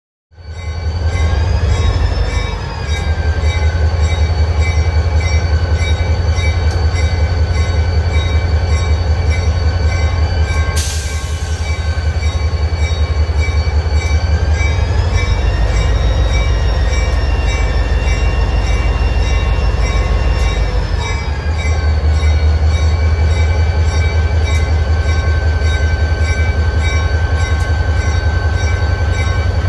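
HZRX diesel locomotive 6421 running close by: a heavy, steady low drone with high whining tones above it. The whine slides up and back down in pitch more than once. There is a brief click about eleven seconds in.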